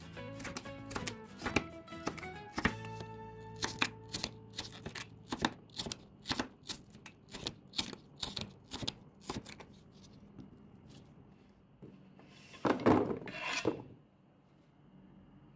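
Crinkle-cut knife chopping through watermelon rind on a wooden cutting board: a series of crisp knocks, about two a second. Near the end comes a louder scraping clatter as the cut pieces go into a plastic bowl.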